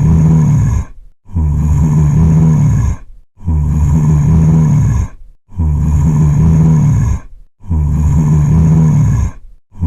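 Zombie groan sound effect: a low, voiced moan about two seconds long, looped over and over with short gaps between repeats, about five times.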